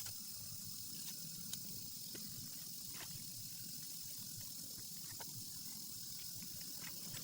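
Steady rain falling: an even hiss with a few faint drops tapping here and there.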